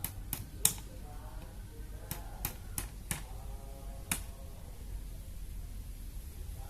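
A run of sharp clicks or snaps, about eight in four seconds with the loudest near the start, over a steady low wind rumble. A few faint short calls sound in between.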